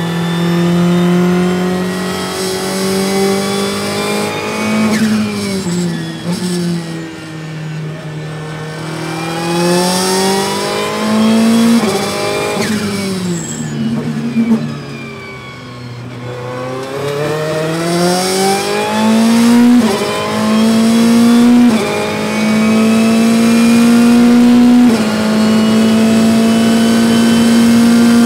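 Ferrari 488 GT Modificata's twin-turbo V8, heard from inside the cockpit. The engine note falls as the car slows for corners, is lowest around the middle, then climbs through several quick upshifts under full throttle to its highest pitch near the end.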